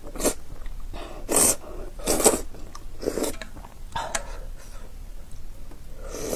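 Noodles in hot soup being slurped in a series of short sucking bursts, about one a second, with softer chewing between them.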